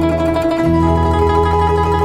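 Instrumental background music with held notes over a steady bass line.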